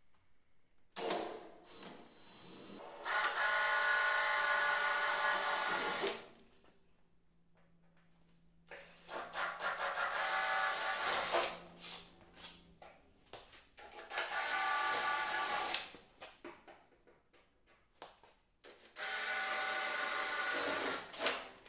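DeWalt 20V Max cordless drill drilling out the rivets holding aluminum trim, in four bursts of a few seconds each, with short clicks and rattles between them.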